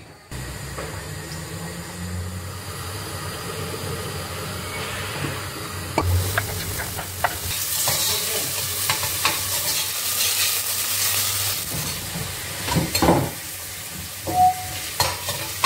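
Chopped onions tipped into hot sunflower oil and butter in a steel pot start sizzling about six seconds in, after a steady low hum. A few knocks and clinks come near the end.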